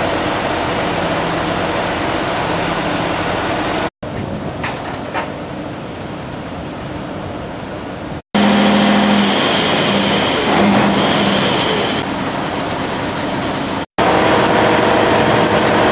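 A heavy engine running steadily with a constant rumble and hiss, cut off abruptly three times. In the middle it is louder, with a steady hum.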